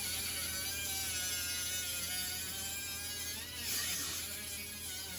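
Cutoff wheel whining steadily as it cuts through a sheet-metal floor pan, its pitch dipping briefly about three and a half seconds in.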